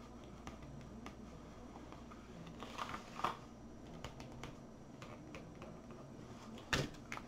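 Faint rustling and light taps of a diamond painting canvas and its plastic cover sheet being handled and smoothed flat on a wooden table, with a few slightly louder clicks about three seconds in and near the end.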